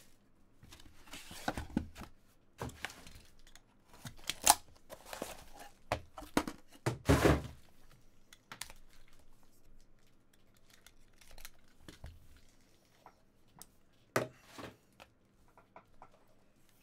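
Trading cards and their packaging being handled: scattered tearing and crinkling, with sharp taps and thunks as cards and packs are set down. The loudest bursts come about four and a half and seven seconds in, with softer clicks and rustles near the end.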